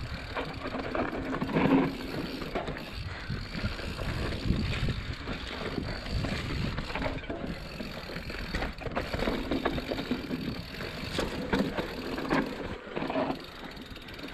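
Mountain bike rolling over a bumpy dirt trail: a steady rumble of tyres on the ground with irregular rattles and knocks from the bike.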